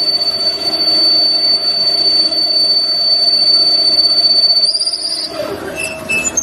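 Double-spindle CNC lathe machining metal: a steady high-pitched whine over a lower machine hum, at the grooving stage of the cycle. The whine wavers and stops about five seconds in, followed by a few short tones and a click near the end.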